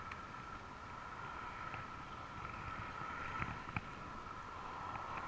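Muffled, steady hum from a camera sealed in a waterproof case, with a few light clicks from handling, two of them close together a little past halfway.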